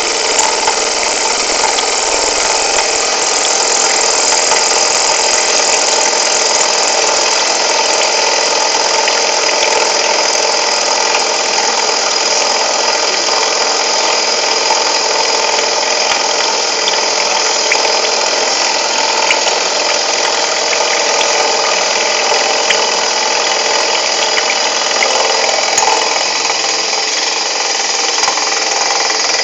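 CNC machine running steadily while machining a 1/4-inch hexagon in stainless steel, a dense continuous mechanical noise with a few steady tones in it.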